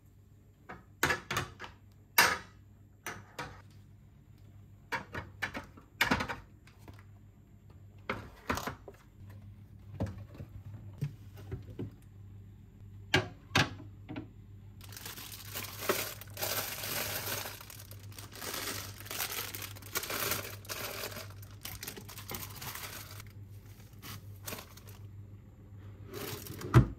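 Groceries and plastic food containers being set onto fridge shelves: a series of sharp knocks and clicks, then several seconds of rustling plastic packaging, with a loud thump near the end.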